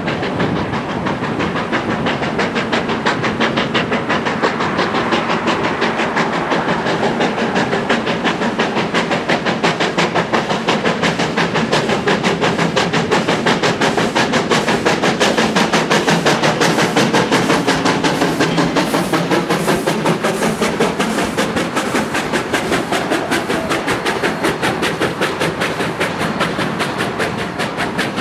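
Georgetown Loop Railroad's narrow-gauge steam locomotive #40 chuffing in a steady rapid beat as it approaches and passes, loudest about halfway through as the engine goes by. Near the end its passenger cars roll past.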